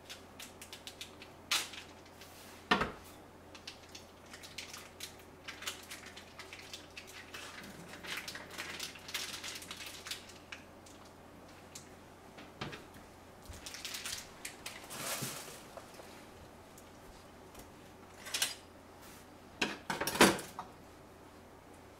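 Kitchen prep handling sounds: scattered knocks and clatters of a kitchen knife and utensils set down on a steel counter and wooden cutting board, with a few longer, softer noises in between. The sharpest knocks come about three seconds in and near the end.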